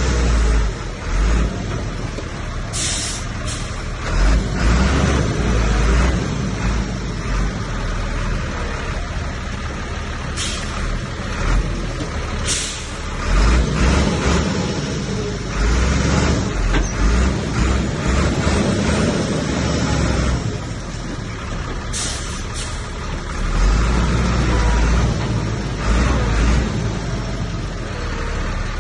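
Heavy diesel earthmoving machinery at work, a bulldozer and a dump truck, with deep engine rumble that swells and fades repeatedly. Four short, sharp hisses, like air-brake releases, cut through the noise.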